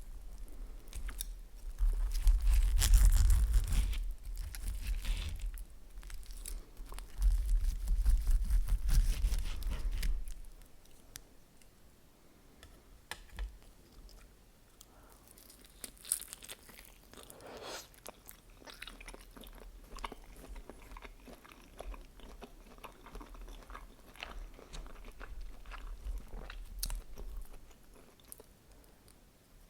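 Close-miked eating: biting into and chewing chicken lyulya kebab and vegetables, with crunching. Two louder, deeper stretches come in the first ten seconds, then softer chewing with many small clicks.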